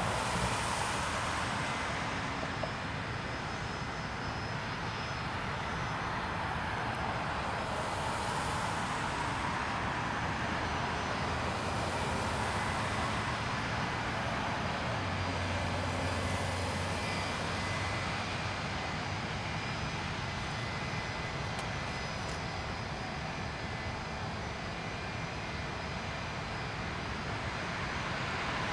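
Pratt & Whitney JT8D turbofans of a McDonnell Douglas MD-83 running at a steady low power, a continuous jet roar with a hiss that swells and fades every few seconds.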